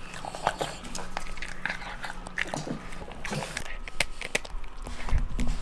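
A dog crunching and chewing food, heard as irregular crisp crunches and clicks.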